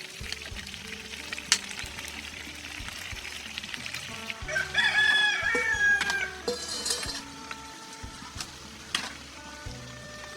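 A rooster crows once, about halfway through: one drawn-out call. Scattered crackles run underneath.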